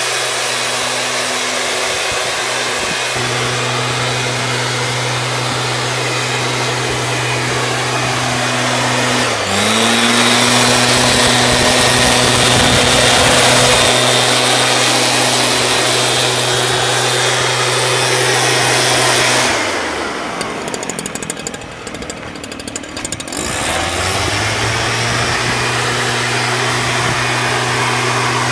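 STIHL SR 5600 backpack mist blower's two-stroke engine running steadily at high speed, blowing fog out through the fogger nozzle. The engine note dips and recovers about nine seconds in. Around twenty seconds in it falls off to a lower, rattling speed for about four seconds, then picks back up.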